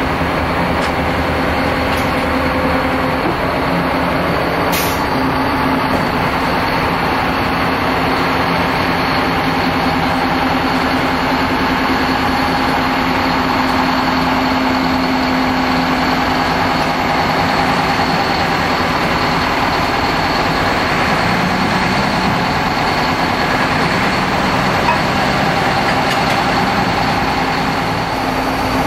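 Narrow-gauge diesel locomotive's engine running steadily at low revs, close by.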